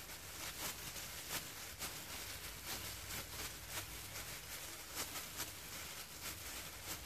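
Disposable plastic food-prep gloves crinkling and rustling while ground meat is pressed into a fried tofu pocket: faint irregular crackles, several a second, over a faint low hum.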